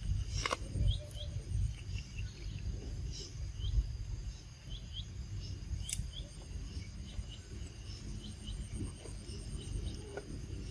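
Outdoor ambience: a steady high-pitched insect drone with scattered short bird chirps over a low rumble.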